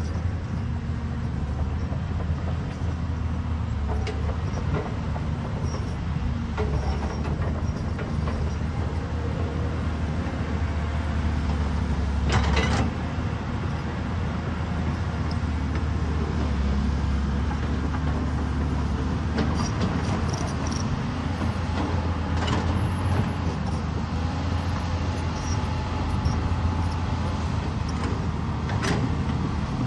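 Caterpillar 320D hydraulic excavator's diesel engine running steadily with a low rumble, punctuated by a few sharp knocks, the loudest about twelve seconds in.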